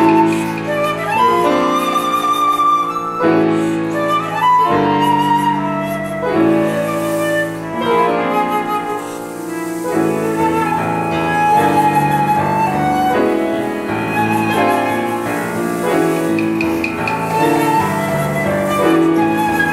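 Flute playing a slow, held melody over grand piano chords struck every second or two: live contemporary classical chamber music.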